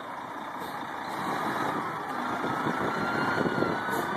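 Fire engine's motor running steadily as the truck drives slowly past close by. A faint siren glide can be heard underneath in the second half.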